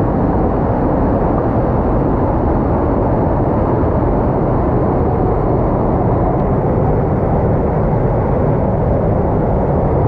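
Waterfall crashing into a churning plunge pool, heard from right beside the falling water: a loud, steady rush, heaviest in the low range.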